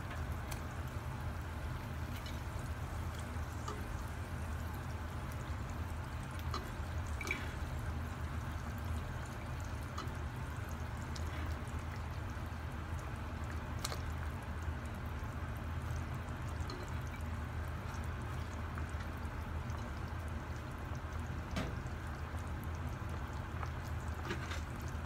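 Thin curry gravy simmering in a nonstick frying pan with pieces of catla fish in it: a steady bubbling over a low hum, with a few faint clicks.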